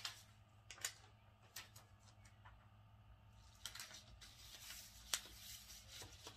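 Faint rustling of a paper shipping label and plastic mailer being handled, with a few light scattered taps over a low steady hum.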